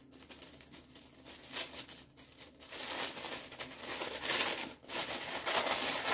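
Purple tissue paper rustling and crinkling as it is pulled and torn off a wrapped book, faint at first and louder from about a second and a half in.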